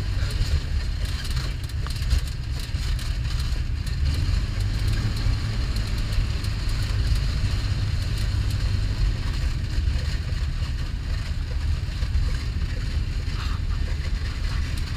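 Zenith STOL CH 750 light aircraft engine running with a steady low drone, mixed with wind noise.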